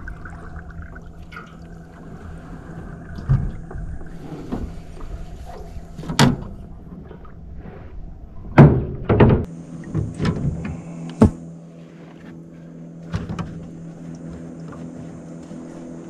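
Boat outboard motor running slowly at idle, a steady low hum, with a series of sharp thunks, the loudest about eight and a half seconds in and again about eleven seconds in.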